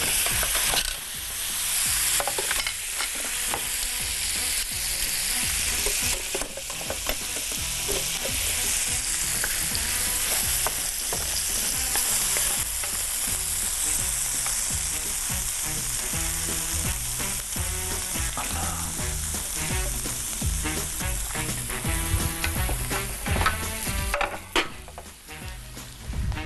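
Food frying in hot oil in a pan: a steady sizzle that thins out near the end, with a few clicks.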